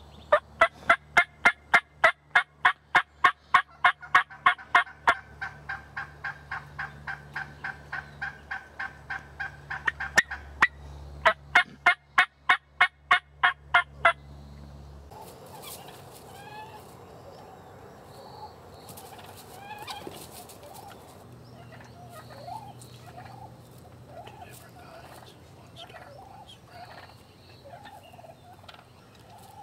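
Wild turkey hens calling: a long run of loud, evenly spaced yelps, about three to four a second, dipping quieter for a few seconds in the middle. About halfway through they stop, leaving softer, scattered short calls.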